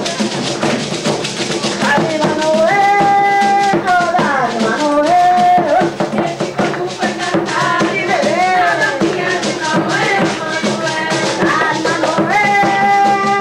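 Live coco music: a voice singing a melody with long held notes over a steady shaken-rattle beat and drums.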